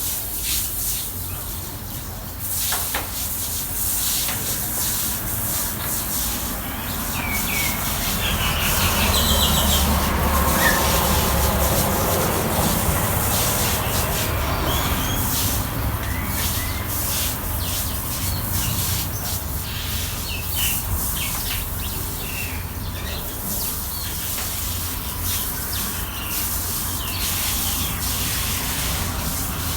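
Broom sweeping the ground in irregular scraping strokes, with birds chirping now and then and a low rumble underneath.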